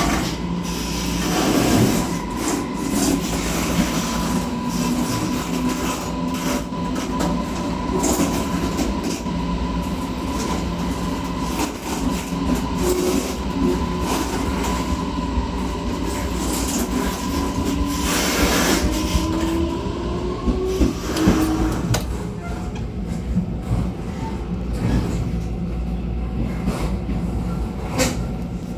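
Taiwan Railways local commuter train heard at the gangway between two cars: a steady running rumble with frequent clicks over the rail joints. Through the middle a whine rises slowly in pitch, then stops a little past twenty seconds in, together with a steady high tone.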